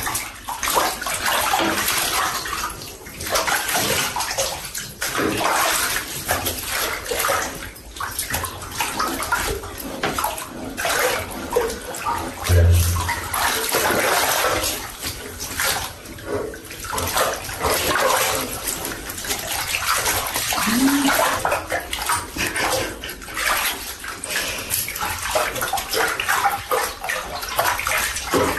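Bathwater splashing and sloshing in a tub as a black leopard is washed and scrubbed by hand, with one dull thump about halfway through.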